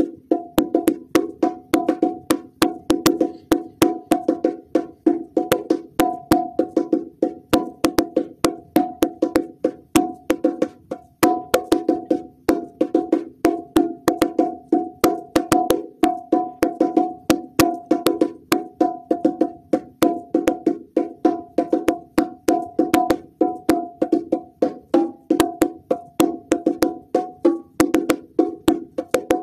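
Bongo drums played by hand in a fast, steady rhythm: several sharp, pitched strikes a second.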